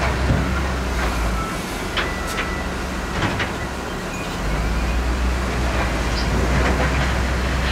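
Diesel engines of heavy earthmoving machinery running, their deep hum easing off from about a second and a half in and coming back near the middle, with scattered sharp metal clanks and a brief high squeak.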